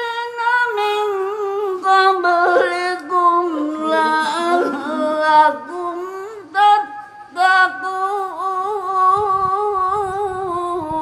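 An elderly man reciting the Quran in a high, melodic voice through a handheld microphone. He holds long ornamented notes with a wavering pitch and breaks off briefly a few times.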